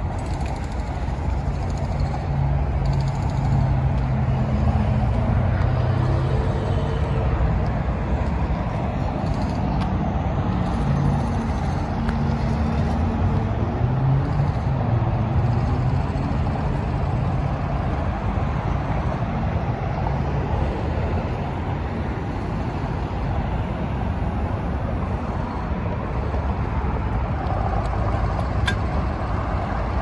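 Steady road traffic noise from cars at a busy intersection beside a freeway. Through roughly the first half there is a low drone of engines, with pitch rising as vehicles pull away.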